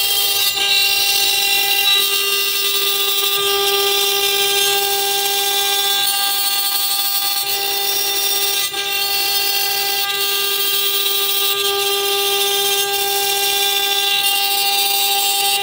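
Desktop CNC router spindle running with a steady high whine as an end mill machines around a cast brass hexagonal part, with the hiss of the cut beneath it.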